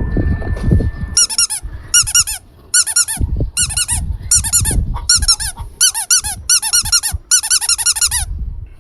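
High-pitched squeaking in about nine short bursts, each a rapid run of chirps, over low rustling handling noise.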